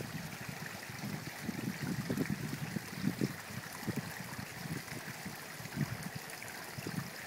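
Water trickling and flowing in a garden koi pond, a steady wash with many small, uneven low splashes.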